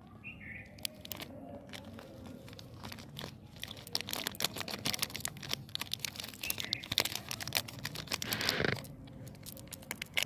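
Plastic Cadbury Gems wrapper crinkling and tearing open by hand, a dense run of sharp crackles from about four seconds in that stops about a second before the end, as the chocolate buttons are tipped out into a palm.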